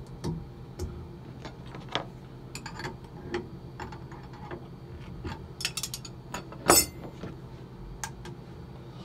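Irregular metallic clicks and clinks of wrenches on a CNC router's collet nut while the router bit is swapped by hand, with a louder run of clinks between about five and a half and seven seconds in.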